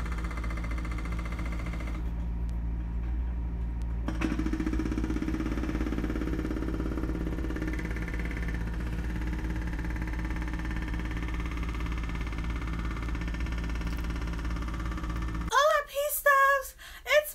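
A steady low mechanical hum with a light hiss, which stops about fifteen seconds in; a woman's voice starts right after.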